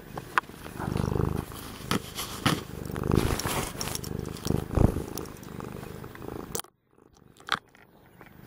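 Domestic cat purring right against the microphone while being stroked, with rubbing and bumping of fur and hand on the microphone. About two-thirds of the way through the sound drops away almost to silence, broken by one short knock.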